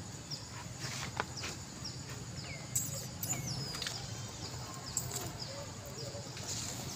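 A bird chirping: short high chirps about two or three a second, then a few longer falling calls around the middle, over a low steady hum.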